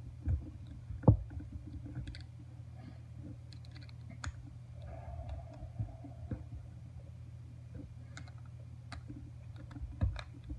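Screwdriver turning the worm screw of a stainless hose clamp tight around a trim knob: scattered light metallic clicks and scrapes, with a sharper knock about a second in and another near the end, over a steady low hum.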